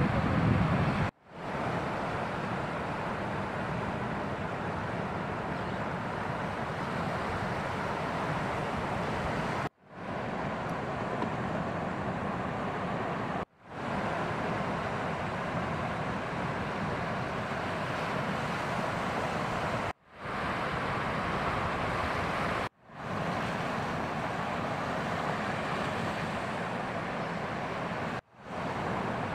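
Ocean surf breaking on the shore: a steady rushing wash of noise that cuts out briefly six times and swells back in each time.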